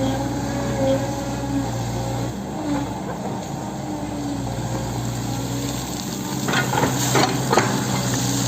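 Hitachi 110M hydraulic excavator running steadily while working soil, its engine note changing about two seconds in. A few sharp knocks come near the end.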